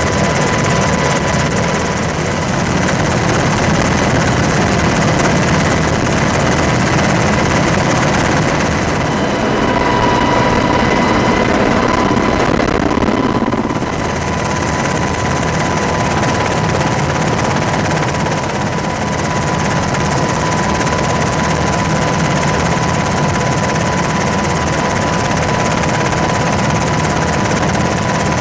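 Steady drone of aircraft in flight, with a steady high whine running through it. The tone of the noise shifts slightly about halfway through.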